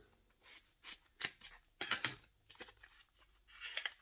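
Packaging being unwrapped and a small cardboard box opened: a string of short crackles and rustles with a few sharper snaps.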